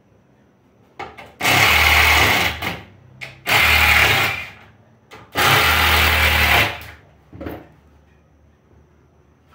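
Cordless drill running under load in three bursts of a second or so each, working into the pine rail of a wooden bench.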